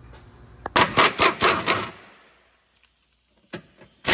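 A wrench loosening a 17 mm engine mount bolt on a Toyota RAV4 Hybrid: a run of about five quick rattling bursts, roughly four a second, starting about a second in, a single knock about three and a half seconds in, and another run starting at the very end.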